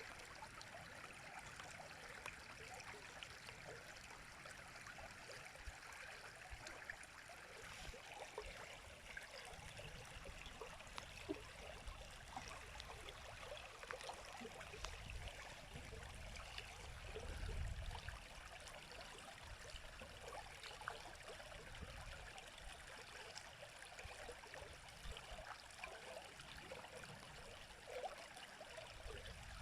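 River water flowing over stones in a steady, faint babble. A low rumble swells briefly just past halfway.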